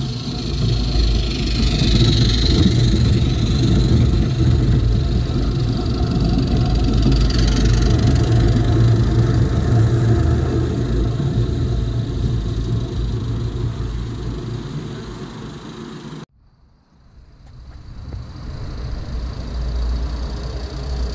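Miniature ride-on steam train passing close by on its track: a steady, loud rumble of wheels on the rails. It cuts off suddenly about three-quarters of the way through, then a second miniature train's rumble builds up as it approaches near the end.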